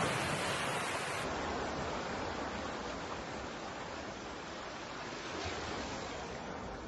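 Ocean surf washing onto a beach: a steady rush of waves with no distinct single crashes.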